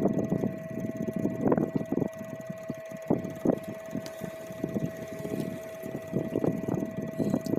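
Irregular close-up rustles and soft knocks from bananas being peeled and eaten, over a steady hum.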